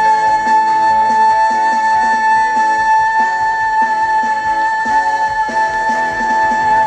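Live trot music: one long, steady high note held for about seven seconds over the band's rhythmic backing, falling away near the end.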